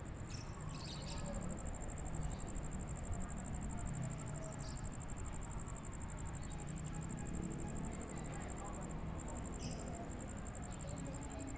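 An insect, cricket-like, trilling steadily at a high pitch, with a low rumble underneath and a few faint short chirps.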